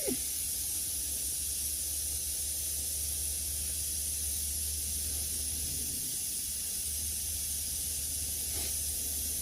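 Steady high hiss with a low hum beneath it, unchanging throughout, from the camp stove burning under the cooking pot.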